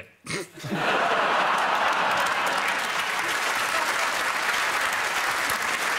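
Studio audience bursting into steady applause just under a second in, after a brief spoken word.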